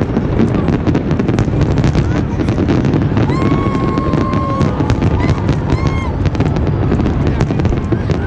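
Fireworks display going off continuously: dense rapid crackling over a steady low rumble of bursts. Midway a high steady whistle sounds, then again briefly.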